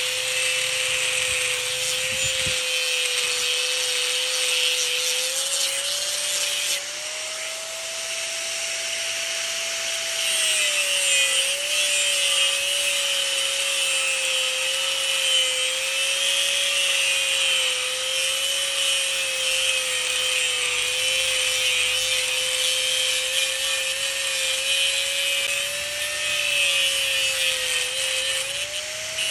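Power grinder's abrasive disc grinding a forged steel bar: a steady motor whine under a harsh, hissing grind. About seven seconds in, the grinding eases and the motor's pitch rises. Just past ten seconds the steel is pressed back on and the pitch drops under the load.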